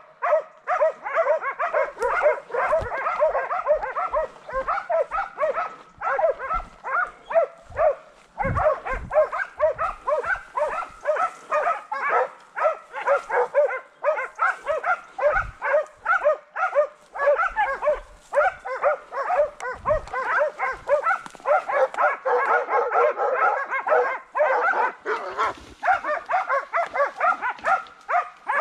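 Hunting dogs barking rapidly and without pause, several barks a second.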